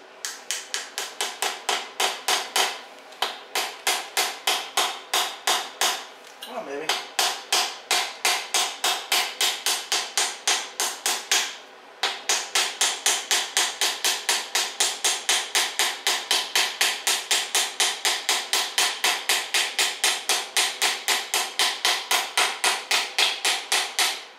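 Hammer tapping a driver to seat the pinion seal into the nose of a GM 8.2-inch 10-bolt rear axle housing: a fast, even run of ringing metallic taps, about four a second, broken by three short pauses.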